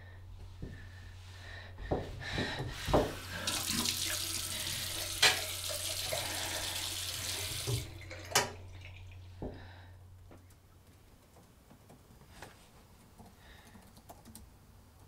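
Bathroom sink tap running for about four seconds, with a few sharp knocks and splashes around it and a steady low hum underneath that fades out about ten seconds in. Near the end, faint light clicks of laptop keys.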